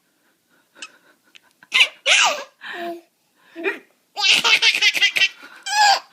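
Baby laughing in bursts: a few short laughs after a quiet second and a half, then a long run of rapid belly laughs about four seconds in.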